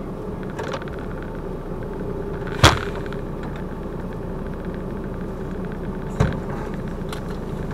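Lorry's diesel engine idling steadily, heard inside the cab while stationary in traffic. A sharp click about two and a half seconds in and a smaller one about six seconds in.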